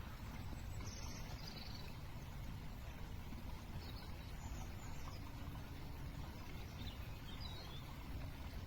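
Steady low outdoor background rumble with a few short, high bird chirps scattered through it.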